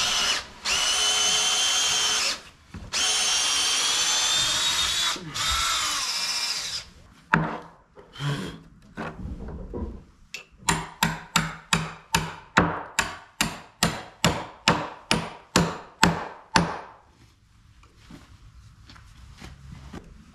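Cordless drill boring into a wooden plank in four runs, its whine shifting in pitch as the bit bites. Then come a few single knocks, and from about halfway a quick, even series of some twenty hammer blows on the board, roughly three a second.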